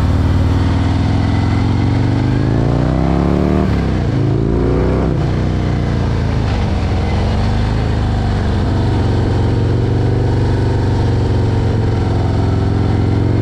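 Harley-Davidson Milwaukee-Eight 114 V-twin running under way on the road, a loud steady engine note whose pitch dips and then climbs again about four seconds in.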